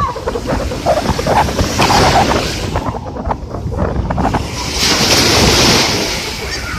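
Sea waves washing onto the shore, with wind buffeting the microphone; the surf surges about two seconds in and again around five to six seconds in.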